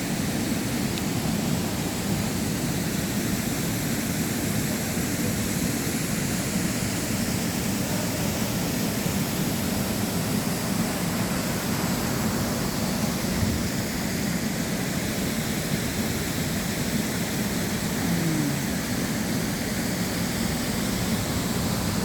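Waterfall pouring: a steady rushing noise of falling water that holds level throughout.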